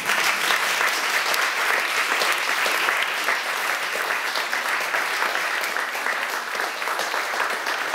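Audience applauding: many hands clapping, breaking out suddenly and then holding at a steady level.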